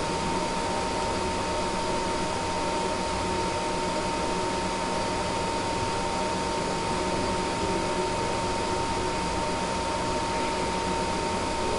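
Steady background hiss with a faint constant tone, unchanging throughout, with no distinct clicks or handling sounds.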